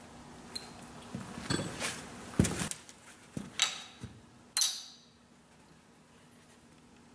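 Metal parts clinking and knocking as injector hold-down clamps and their bolts are handled and set on top of the engine: several sharp clinks and knocks, the loudest near the middle, ending about five seconds in.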